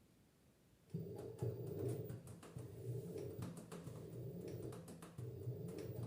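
LG F10B8MD direct-drive washing machine starting up about a second in during its final spin cycle: a steady motor hum with scattered clicks and knocks from the drum, running about five seconds and then stopping near the end.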